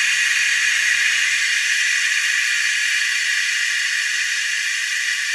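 Steady hiss of compressed air running through an OEM Tools #24937 pneumatic fluid extractor as it pulls a vacuum and draws engine oil up the dipstick tube into its tank.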